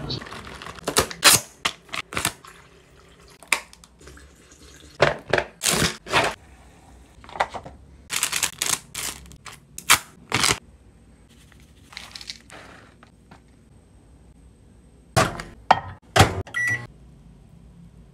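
Short knocks, taps and rustles from food packages being handled and set down on a hard surface. They come in clusters with quieter stretches between.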